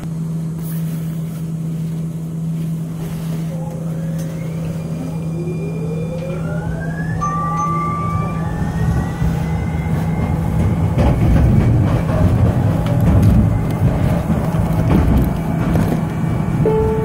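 Siemens S200 light rail vehicle heard from inside, pulling away: a steady electrical hum, with the traction motors' whine rising in pitch as the train accelerates. From the middle on, the rumble of wheels on the rails grows louder.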